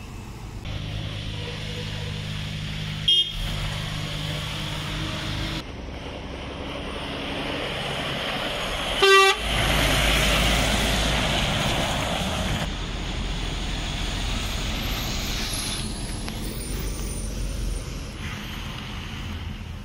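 Diesel lorries driving past close by, engines running, with two short horn toots: a brief one about three seconds in and a louder one about nine seconds in. The louder toot comes just as a DAF XF tractor unit with a refrigerated trailer passes close, followed by a rush of engine and tyre noise that fades as it pulls away.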